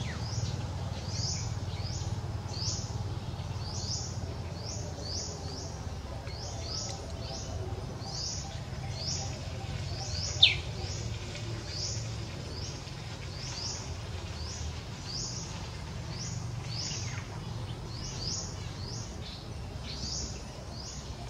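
Small birds chirping over and over, short high falling chirps about two or three a second, over a steady low rumble. About ten seconds in, a single sharp high squeak stands out as the loudest sound.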